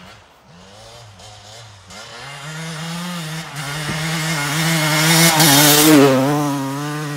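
Kawasaki KX250 single-cylinder two-stroke motocross bike riding toward and past, the engine note wavering up and down with the throttle. It grows louder to a peak about six seconds in as the bike passes, then fades.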